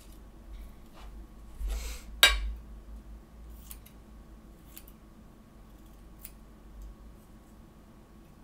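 Scissors snipping out small paper pieces: a few separate cuts, the loudest and sharpest about two seconds in, then faint occasional snips.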